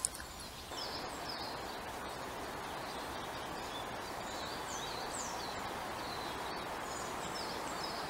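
Small songbirds calling with many short, high, thin falling chirps over a steady background hiss. A sharp click comes right at the start, and the hiss steps up in level just under a second in.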